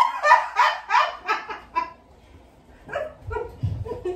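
A person bursting into laughter: a rising whoop, then a quick run of 'ha-ha' laughs that trails off after about two seconds. Faint voices follow.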